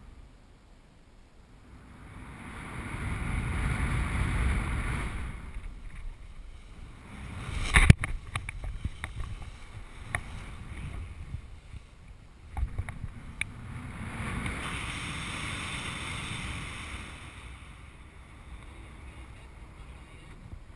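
Wind rushing over the microphone of a paraglider in flight, swelling and fading as the airspeed changes during full-stall manoeuvres. There are a few sharp cracks, the loudest about eight seconds in and another about four seconds later.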